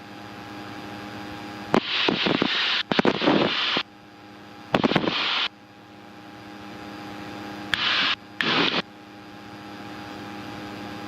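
Small airplane's engine and propeller drone heard inside the cabin as a steady low hum. Three short bursts of loud hiss cut in about two, five and eight seconds in, like the intercom or radio opening.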